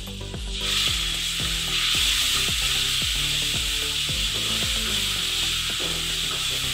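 Potato sticks frying in mustard oil in a nonstick pan, stirred together with poppy-seed paste. The sizzle jumps up sharply about half a second in, then holds steady with the spatula rubbing across the pan.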